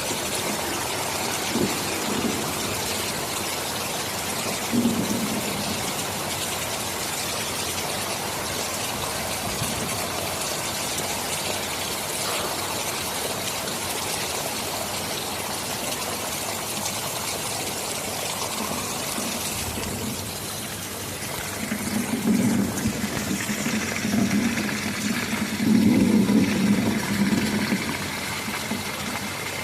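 Steady heavy rain hissing, with thunder rumbling low in the background: a couple of short rumbles early on, then a longer, louder roll of thunder building over several seconds near the end.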